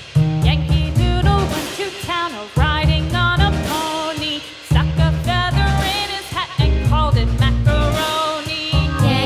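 Background music: an upbeat song with a steady drum beat under a wavering melody line.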